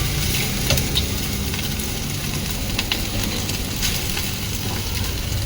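Egg fried rice sizzling in a hot street-stall wok, a steady hiss, with a few sharp clicks from a metal spatula striking the pan as it is stirred. A low steady rumble runs underneath.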